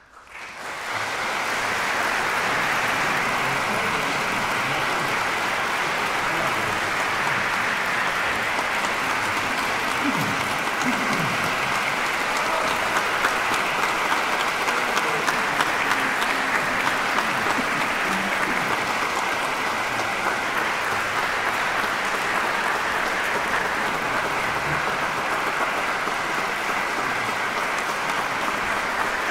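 Large audience applauding in a concert hall at the end of a choral piece: the clapping swells up within the first second and then holds as a steady, even round of applause.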